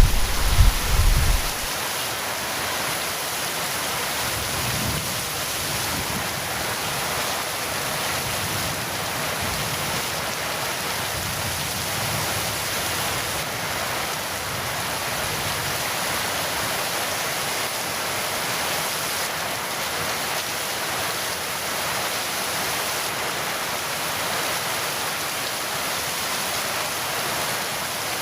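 Heavy rain falling steadily, with the tail of a low thunder rumble dying away in the first second or two.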